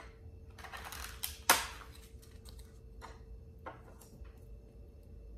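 A toasted sesame rice cracker (bánh tráng) being broken by hand: brittle crackling that ends in one sharp, loud snap about a second and a half in, followed by a few small clicks as the pieces are handled.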